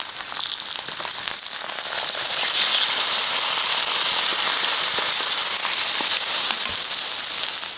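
Liquid poured onto hot, melted LEGO remains, hissing and sizzling as it flashes to steam, with scattered crackles. The hiss swells about two seconds in and eases near the end.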